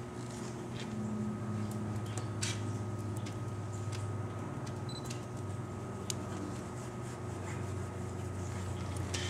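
Steady low mechanical hum, with a few faint ticks and rustles as a kitten bats at a feather teaser toy on carpet.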